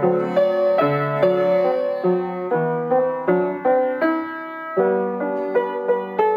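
Instrumental background music: a steady run of pitched notes, each struck sharply and fading, about two to three a second.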